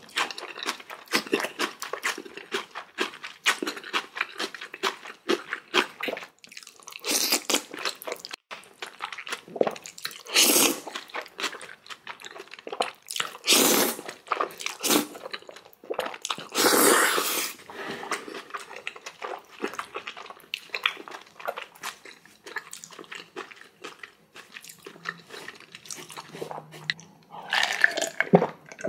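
Close-miked eating: jajangmyeon noodles slurped in four or five long slurps, between dense chewing and crunching of spicy kimchi.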